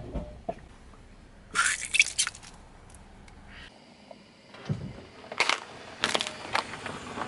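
A car tyre rolling over objects on asphalt: a cluster of crackling and crunching about two seconds in as it presses on a gel-filled squishy toy, then, after a cut, a clatter as a smartphone topples onto the road and a run of sharp crunching and cracking as the tyre rolls onto it.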